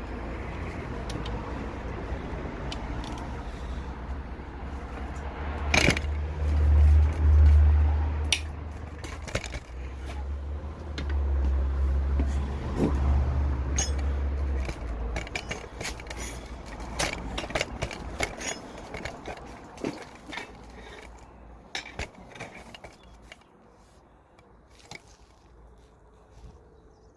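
Scattered metallic clinks and scrapes, as of engine parts being handled, with a heavy low rumble in the middle stretch that fades away toward the end.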